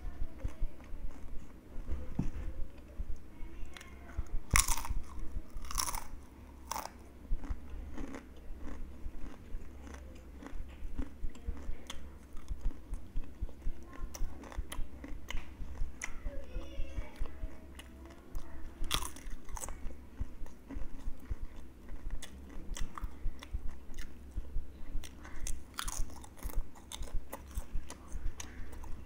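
Crisp spiced potato chips being bitten and chewed, a run of sharp crunches. The loudest snaps come a few seconds in and again about two-thirds through.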